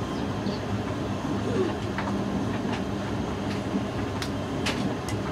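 Hoover DYN9144D3X washing machine running its Rapid wash, with a steady motor hum and scattered light clicks and taps from the drum.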